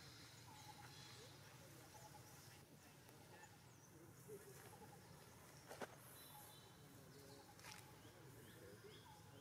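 Near silence: faint outdoor ambience with a few soft clicks and faint high chirps.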